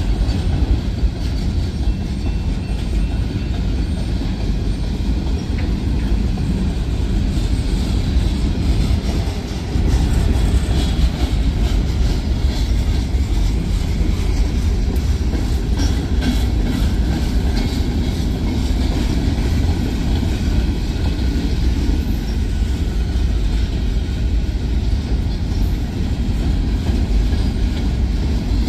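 A Union Pacific manifest freight train's cars rolling past: a steady rumble of steel wheels on rail.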